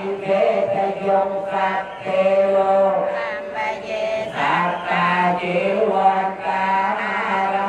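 Khmer Buddhist chanting: a melodic vocal line that wavers and glides over a steady low held tone.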